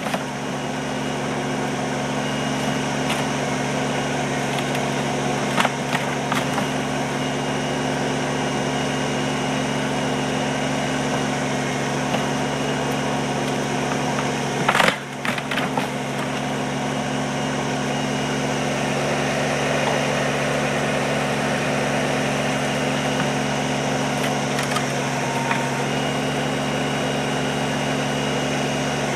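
Kubota compact tractor's diesel engine running steadily while its backhoe bucket tears apart old wooden timbers. A few sharp cracks and splintering of wood, the loudest about halfway through.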